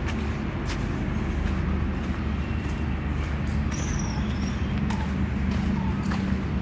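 Steady low outdoor rumble picked up by a handheld phone carried along at walking pace, with faint footsteps on a dirt path. A short high chirp sounds about four seconds in.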